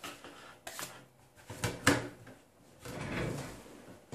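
A 3D printer's PCB heatbed handled and set down on a tabletop: a few light knocks in the first two seconds, then about a second of scraping as the board slides across the table.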